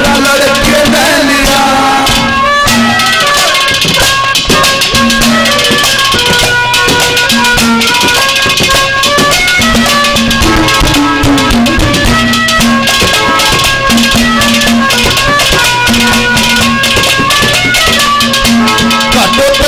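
Instrumental interlude of Haryanvi folk ragni music: a melody of held notes stepping up and down over fast, continuous drum and percussion strokes.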